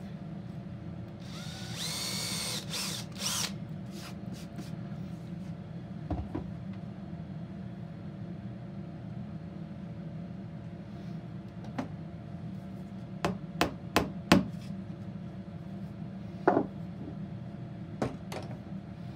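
Cordless drill whirring in two short runs, rising in pitch as it spins up, drilling a small 1/8-inch pilot hole into a chestnut board. Later come several sharp taps and knocks on the wood, the loudest near the middle of the series.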